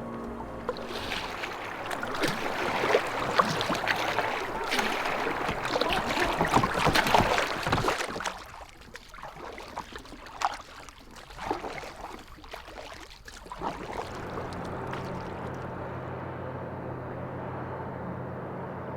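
Water splashing and rushing around a boat, thinning out to a few separate splashes about halfway through, then a steady low motor hum for the last few seconds.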